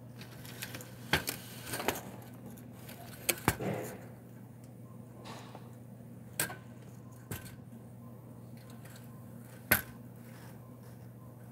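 A handful of sharp light knocks and clinks at irregular intervals, the loudest a little before the end, over a steady low hum.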